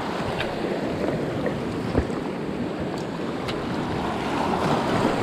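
Small waves washing over a shallow coral reef, a steady surf noise with wind buffeting the microphone. A sharp click about two seconds in and a few fainter ticks.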